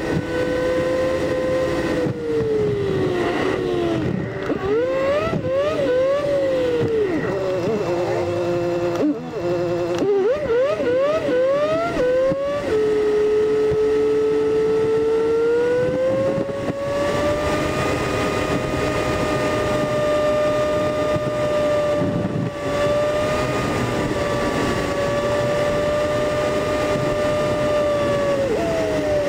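Smart Roadster Coupé's three-cylinder engine heard from inside the car, sped up eight times along with the picture. For the first dozen seconds its pitch sweeps quickly up and down over and over as the car accelerates and shifts through the gears. It then settles into a steady high drone while cruising, rising once a little and dropping just before the end.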